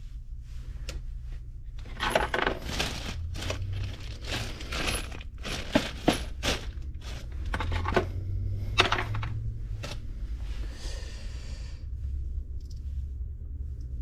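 Small brass pipe fittings clinking against one another and against an orange plastic parts bin as they are picked through by hand: a cluster of sharp metallic clicks through the middle, then a brief plastic-bag rustle. A steady low hum runs underneath.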